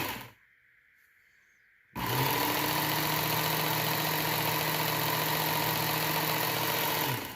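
Work Sharp Ken Onion Edition belt knife sharpener switched on about two seconds in: its motor spins up and runs at a steady pitch with a whine for about five seconds, then is switched off and winds down.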